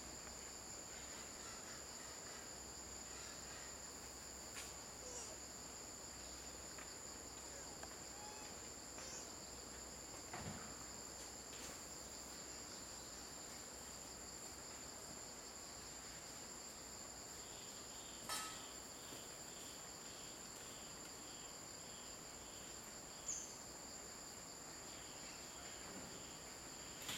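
Steady high-pitched drone of insects, with a few faint knocks, the loudest about eighteen seconds in. In the second half comes a faint run of short repeated chirps, about two a second.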